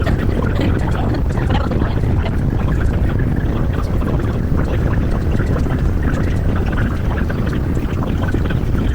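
Disneyland Railroad steam train rolling along the track, heard from a passenger car: a steady loud rumble with scattered irregular clicks.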